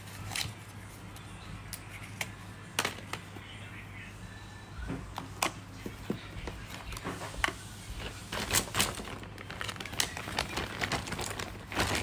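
Small objects being handled: scattered clicks, taps and rustles, busier near the end, over a steady low hum.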